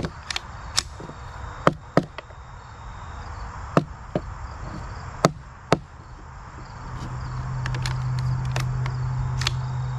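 Sharp clicks and knocks, about a dozen spread unevenly over several seconds, as a Ruger 10/22 rifle's action and magazine are handled. A steady low hum swells up in the last few seconds.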